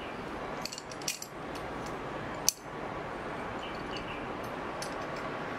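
Sharp metallic clicks and clinks as a metal 90-degree corner clamp is handled and fitted to a plywood box corner. There is a cluster of clicks about a second in and the loudest single click about two and a half seconds in, over a steady background hiss.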